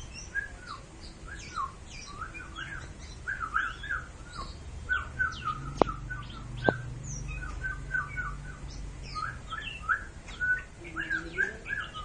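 Caged oriental magpie-robin (kacer) singing a fast, unbroken run of short chattering notes, worked up in its puffed-out 'mbagong' display. Two sharp clicks come about six seconds in.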